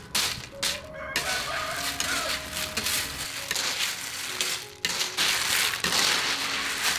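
Blood cockle shells clattering and rattling as a colander-load is poured into a hot steaming wok, loudest and densest about five to six and a half seconds in. A rooster crows in the background about half a second in.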